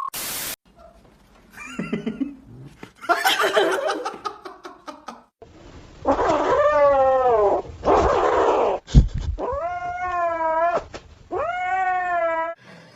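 A cat yowling in three long drawn-out calls, each rising and then falling in pitch, in the second half, after a stretch of mixed short sounds.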